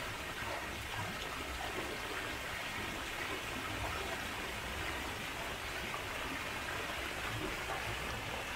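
Steady rush of running water, such as a garden stream or fountain, with an uneven low rumble underneath.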